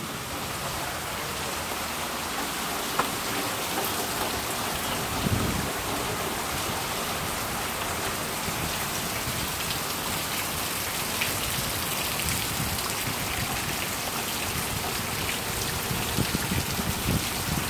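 Hurricane Harvey's rain falling steadily onto a flooded street: a continuous, even hiss of rain and splashing on standing water.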